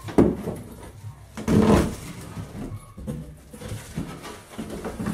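Plastic packaging and cardboard box rustling and crinkling as parts are rummaged for and lifted out of the box. There is a louder burst just after the start and another lasting about half a second around one and a half seconds in, then lighter rustles.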